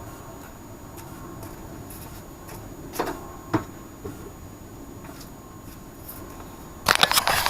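Low background hum with two light knocks a few seconds in, then a burst of loud clattering clicks near the end, like tools or parts being handled.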